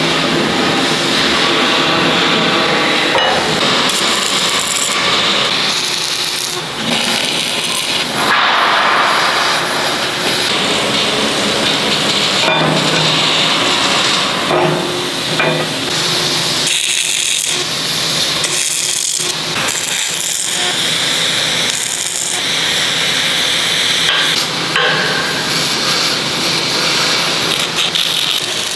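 Steel fabrication work on an excavator bucket: the crackle of MIG welding with knocks and scrapes of steel parts being handled and fitted.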